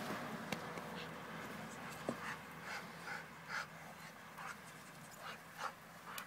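Doberman panting in quick short breaths, about two a second, starting about two seconds in, with a couple of sharp clicks before it.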